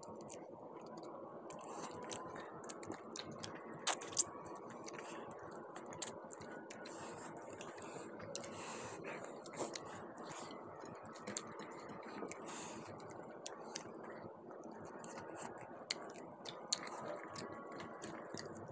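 Close-up eating sounds of two people eating rice and curry with their hands: chewing and the squelch and scrape of fingers mixing rice on plates, with scattered small clicks and two sharper clicks about four seconds in.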